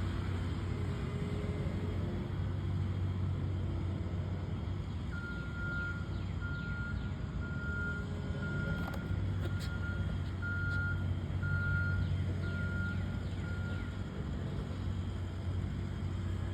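Heavy construction vehicle's diesel engine running steadily, its reversing alarm beeping about once a second for roughly nine beeps from about five seconds in: the machine is backing up.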